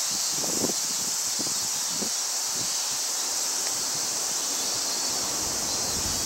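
Steady, high chorus of cicadas droning without a break. Short low knocks of wind on the microphone come in the first couple of seconds, and a low rumble rises near the end.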